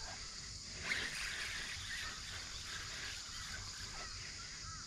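Faint outdoor ambience: a steady high hiss with a few faint bird chirps scattered through it.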